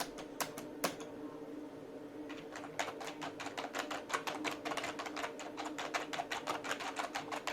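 Havit KB505L keyboard keys being pressed: a few single clicks, then rapid typing from about two and a half seconds in. A faint steady hum runs underneath.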